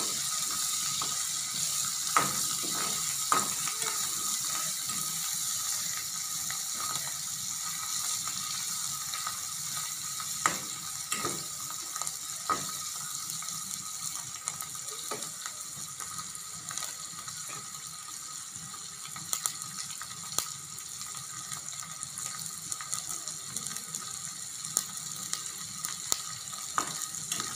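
Dried fish frying in hot coconut oil in a metal wok, a steady sizzle, with scattered sharp clicks and scrapes as a metal ladle stirs it against the pan.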